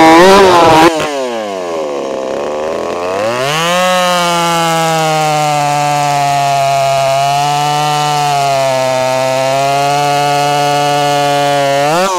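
Pipe-ported Stihl 026 two-stroke chainsaw running flat out while bucking a log of dry oak. Its pitch drops and climbs back up a second or two in, then holds steady under the load of the cut, and rises sharply near the end as the chain comes free.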